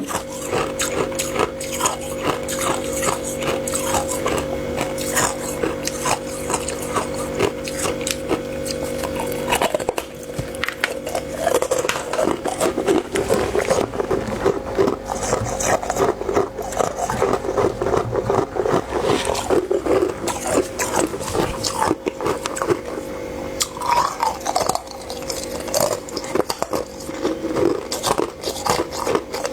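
Freezer frost being bitten and chewed: dense, irregular crunching. A steady hum lies underneath for the first ten seconds or so and comes back near the end.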